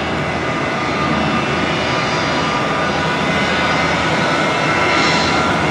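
The four PS-90A turbofan engines of an Ilyushin Il-76TD-90VD cargo jet running at taxi power. A steady rush of engine noise carries several high whining tones and grows slowly louder as the jet taxis closer.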